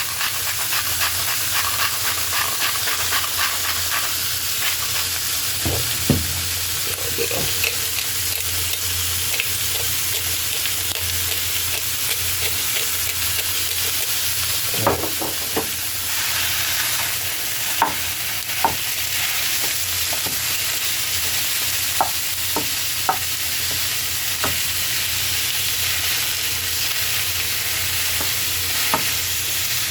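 Ground beef frying and sizzling steadily in a pan with onions and jalapeños, with occasional scrapes and taps of a utensil against the pan as the meat is stirred.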